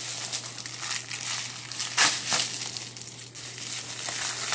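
Plastic packaging crinkling and crumpling as it is handled and pulled open, with a sharper, louder crackle about two seconds in.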